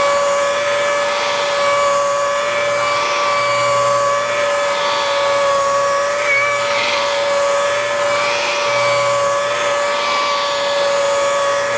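Makita rotary polisher running steadily with a foam pad, a constant high motor whine as it buffs machine polish into the paint of a car door. This is the second, finishing-polish stage after compounding.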